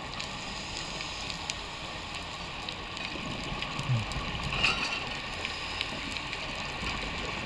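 Underwater ambience picked up by a dive camera: a steady hiss with scattered faint clicks. A short low knock comes about four seconds in, followed by a brief rush.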